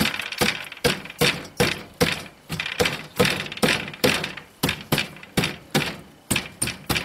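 Repeated wooden thunks, about two or three a second, as a board is knocked down into a tight fit inside a wooden hutch frame.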